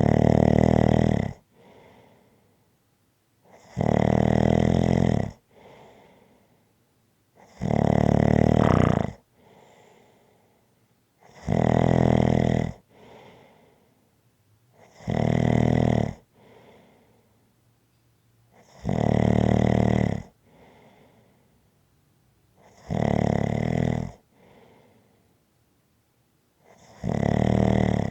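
Steady, rhythmic snoring: eight loud snores, one on each breath in, about every four seconds, each lasting a second or more and followed by a faint breath out.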